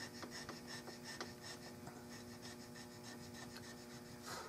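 Hand checkering tool scraping a walnut gunstock in faint, short strokes as it cuts checkering lines, with a steady low hum underneath.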